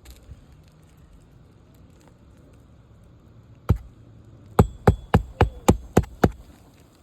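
Hammer driving a roofing nail through a new asphalt shingle: one strike, a short pause, then seven quick strikes at about four a second, some with a faint metallic ring.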